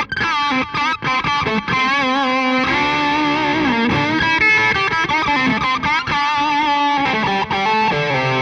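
Distorted electric guitar playing a lead line, with wavy vibrato on held notes and bends, including a slide down about four seconds in. It is played through an amp shut in a Box of Doom isolation cab and recorded with microphones inside the cab.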